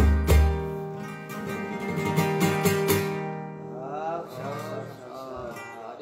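Acoustic guitar strummed as a song closes, the final strums about halfway through and the last chord ringing out, followed by a man's voice starting up.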